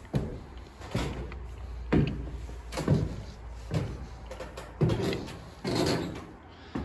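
Footsteps on wooden stairs and a loft floor: heavy, evenly spaced steps, about one a second.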